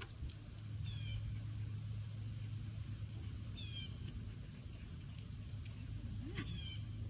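Short high-pitched animal calls, each a quick run of slightly falling notes, repeated about every three seconds over a steady low hum.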